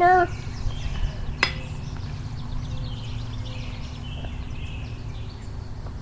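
Small birds chirping over a steady low wind rumble. A short, loud pitched call, like a voice, opens it, and a single sharp click comes about a second and a half in.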